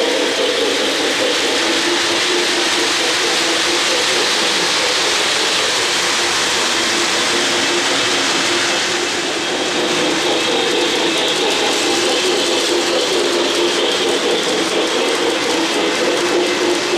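O-gauge model trains running on three-rail track: a steady rumble and clatter of wheels and motors, dipping slightly about nine seconds in.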